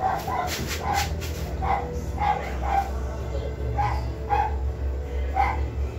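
A dog barking in short, high yelps, about nine of them at uneven gaps, over a steady low rumble.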